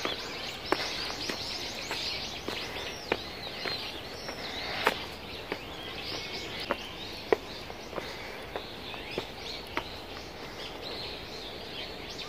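Birds chirping over outdoor ambience, with footsteps on pavement and a wooden bridge as sharp ticks about every 0.6 seconds.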